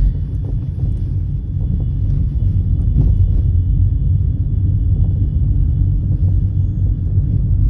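Steady low road and engine rumble heard from inside a moving car.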